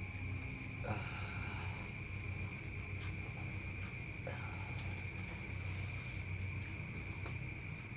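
Insects trilling steadily at one high pitch over a low steady hum, with a few faint short chirps higher up in the middle.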